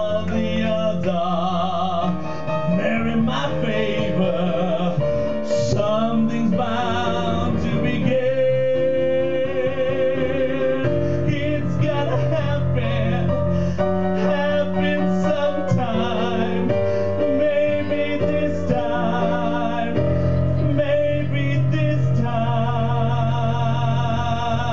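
A solo singer sings sustained notes with a wide vibrato into a microphone over backing music.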